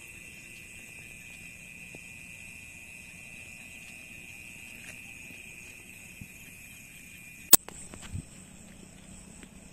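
A steady, high, unbroken insect trill, like night crickets, that cuts off suddenly with a sharp click about seven and a half seconds in. A soft thud follows shortly after.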